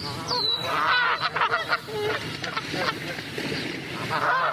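Several Canada geese honking, calls overlapping one another, busiest about a second in and again near the end.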